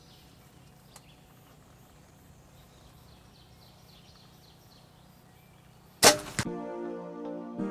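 A single loud shotgun blast about six seconds in, fired at a wild turkey gobbler, after a few seconds of faint woodland background. Music with piano and synthesizer starts right after the shot.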